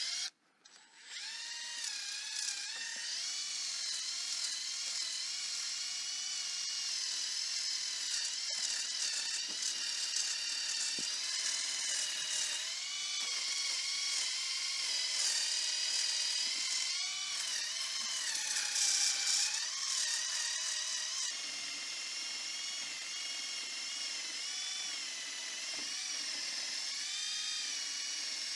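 Small high-speed electric rotary tool running under load while scrubbing rust off steel, its high whine wavering up and down in pitch as the load changes. It starts about a second in.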